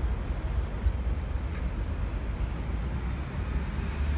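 Boeing E-3A Sentry's four TF33 turbofan engines at takeoff power during the takeoff roll, heard from a distance as a steady low rumble.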